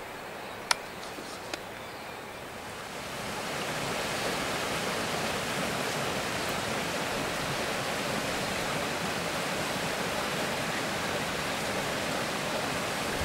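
Steady rushing of a small waterfall, which swells up about three seconds in and then holds even. Before it, a quieter outdoor hiss with two sharp clicks in the first two seconds.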